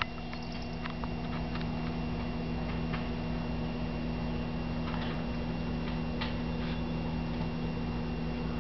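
Steady low electrical hum over background noise, with a sharp click at the very start and a few faint ticks.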